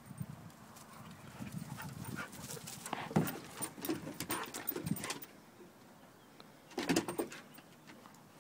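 Two dogs playing, their breathing and scuffling coming in short busy stretches: the busiest from about three to five seconds in, another brief one about seven seconds in.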